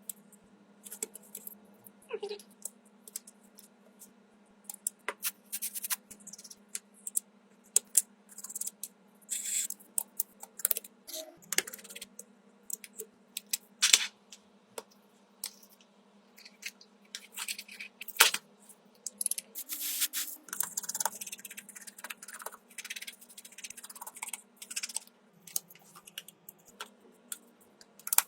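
Irregular sharp clicks, taps and small clinks of hand tools and a cracked smartphone being worked on, over a steady low hum.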